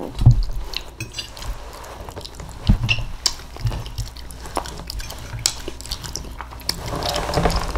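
Close-miked eating of quiche: chewing, with scattered light clicks and clinks of a fork on a plate.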